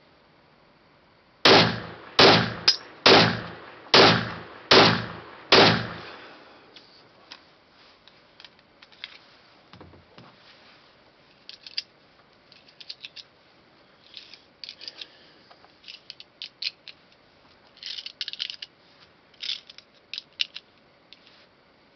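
Seven shots from a Luger-pattern toggle-action carbine in 7.62×25 Tokarev, fired semi-automatically in about four seconds, each a sharp crack with a short ringing tail. After that come many small metallic clicks and rattles as the magazine is handled at the gun case.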